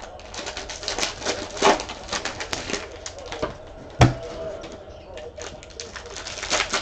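Foil-wrapped trading card packs being handled and shuffled, wrappers crinkling and rustling, with one sharp knock about four seconds in as something is set down on the table.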